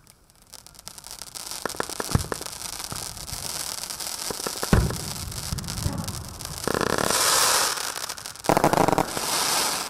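Tai Pan Rampage 150-shot firework barrage cake firing its last shots: a steady hiss and crackle dotted with sharp reports. There are heavier bangs about two and five seconds in, and two loud rushes of dense hiss near the end.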